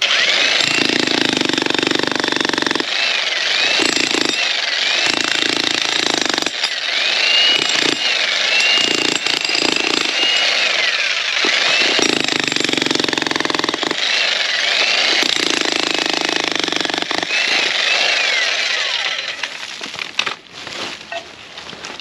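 A VEVOR 110-volt electric demolition jackhammer hammering its bit into hard rock, loud and continuous, the hammering heavier in spells as the operator bears down on it: the harder it is pushed, the harder it hammers. It stops about twenty seconds in, followed by a few knocks.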